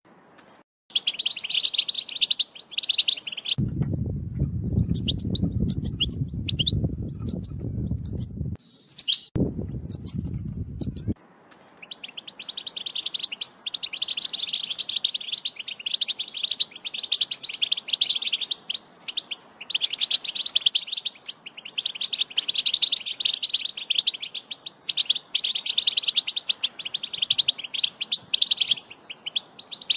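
European goldfinch twittering song: fast, dense chirping trills. It comes in broken phrases with gaps during the first ten seconds or so, then runs almost unbroken from about twelve seconds in. A low rumble sounds underneath in two stretches during the first eleven seconds.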